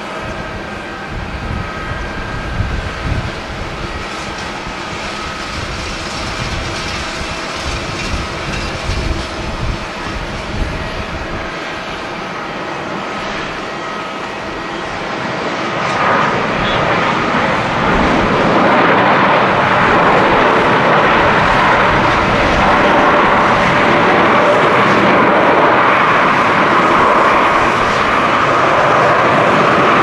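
Boeing 787 airliner landing: its jet engines whine steadily on approach while gusty wind rumbles on the microphone. About halfway through, after touchdown, a loud engine roar builds and holds as the jet rolls out on the runway, the sound of reverse thrust slowing it.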